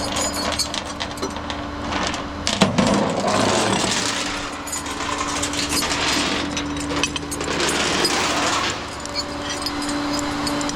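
Flatbed tow truck's winch and tie-down chains at work: a steady mechanical hum under repeated metallic clinking and rattling, with a couple of longer rushing noises.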